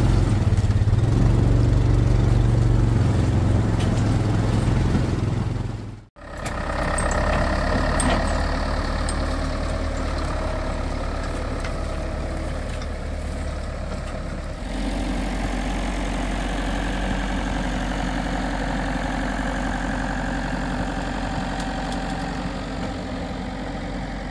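Case tractor's engine running steadily, briefly cut off about six seconds in, its sound changing again about halfway through.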